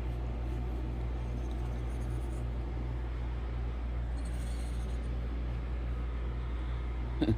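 A steady low mechanical hum, with one short click near the end.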